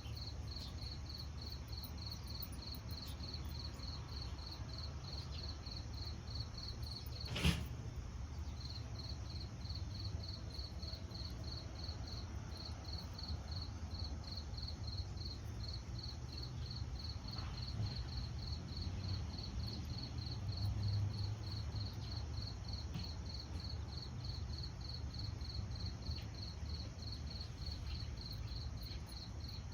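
A cricket chirping steadily at about four chirps a second over a low rumble, with one sharp knock about seven seconds in.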